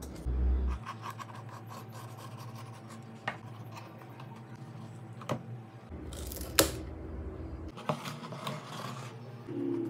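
Corrugated cardboard pieces being handled and fitted together: scraping and rubbing with a few sharp clicks, the loudest about six and a half seconds in, over a steady low hum.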